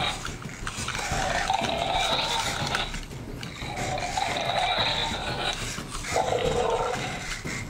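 Zoomer Indominus Rex robot dinosaur toy playing electronic roar sounds from its speaker: three drawn-out roars with short gaps, the last one lower. These are its angry-mode calls, set off when its nose sensors are touched.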